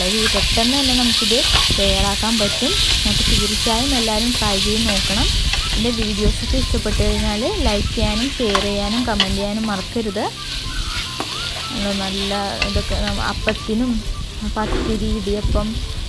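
Chicken pieces sizzling in a hot pan while they are stirred, the spoon scraping the pan in repeated short squeaky strokes. The sizzle is loudest for the first few seconds, then dies down.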